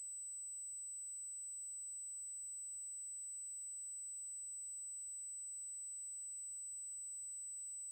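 A steady, high-pitched electronic tone held on one pitch, over faint hiss.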